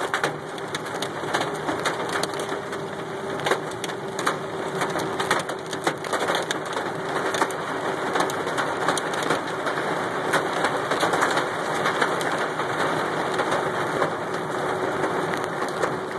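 Hail and heavy rain hitting the roof and windshield of a moving car, heard from inside the cabin: a constant, dense clatter of sharp irregular hits over a steady wash of rain.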